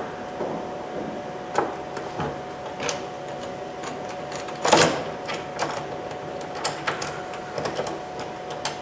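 Irregular clicks and ticks of a hand driver turning out the T20 Torx screws on the underside of a 1998 Volkswagen Beetle's plastic door panel, with one louder clack about five seconds in. A faint steady hum sits underneath.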